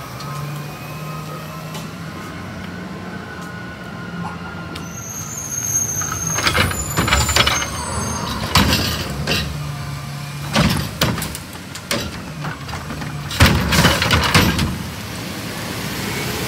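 Autocar Xpeditor garbage truck's engine running steadily. From about six seconds in comes a run of loud clanks and bangs as the Curotto-Can arm grabs a plastic yard-waste cart and shakes it empty into the hopper. The banging stops shortly before the end.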